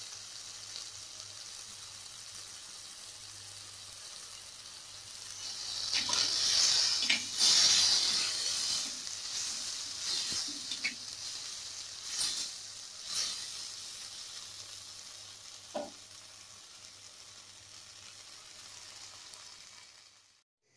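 Chopped onion, tomato, chillies and coriander sizzling in oil in an earthenware pot, stirred with a slotted metal spatula. The sizzle swells about six seconds in and then slowly dies down, with a few sharp taps and scrapes of the spatula against the clay pot.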